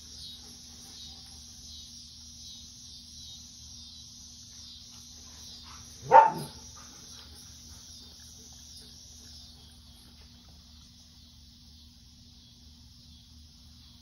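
Cicadas droning in a steady, pulsing chorus, fading somewhat after about ten seconds. About six seconds in, a single short, loud dog bark.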